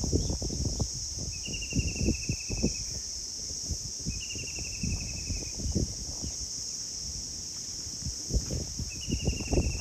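Outdoor nature ambience: a steady high-pitched insect drone, with a fast trilled call repeated three times, each falling slightly in pitch. Gusts of wind buffet the microphone with low, irregular rumbles throughout.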